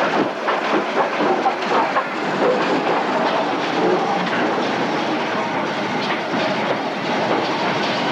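Ivatt Class 2 2-6-0 steam locomotive running past slowly and close by: a steady rush of steam and running noise, with irregular clanks in the first couple of seconds.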